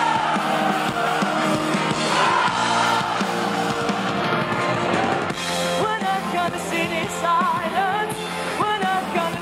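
Live band playing pop-rock: a woman singing lead into a microphone over electric bass guitar and drums, loud and full.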